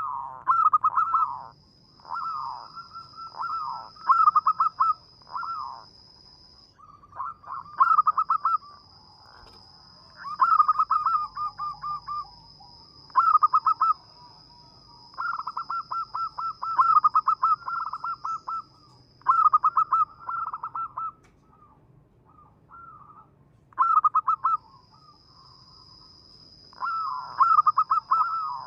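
Zebra dove (perkutut) cooing: repeated phrases of rapid staccato coos, each a second or two long, with short pauses between them.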